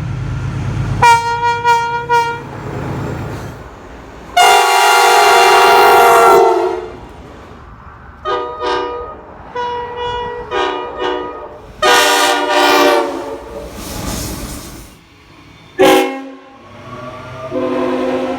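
Train horns blowing a series of blasts, some short and some held for about two seconds.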